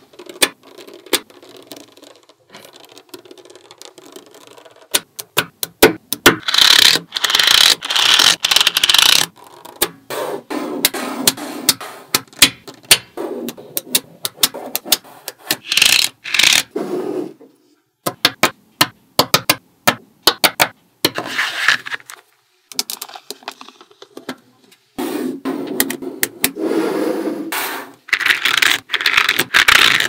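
Small neodymium magnetic balls clicking and snapping together as strips of them are laid into place, with stretches of rattling and scraping as the balls roll and slide over a hard tabletop. The clicks are sharp and come in quick runs.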